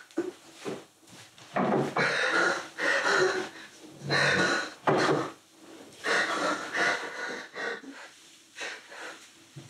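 A man breathing hard in ragged, sobbing gasps, about one breath a second, louder at first and then fainter.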